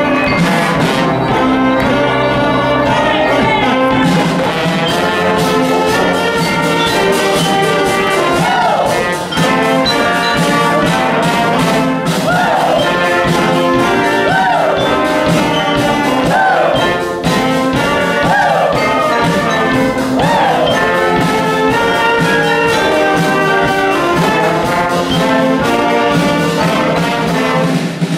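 Live music led by brass, playing steadily, with a run of swooping slides in pitch through the middle stretch.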